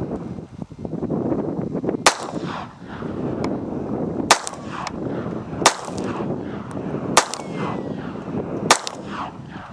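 Handgun fired five times at a steady pace, the shots one to two seconds apart, each crack ringing out briefly after it.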